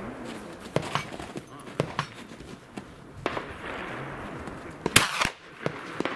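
A single loud gunshot from a shouldered over-under gun about five seconds in, with a short echo after it. Several fainter sharp cracks come before it.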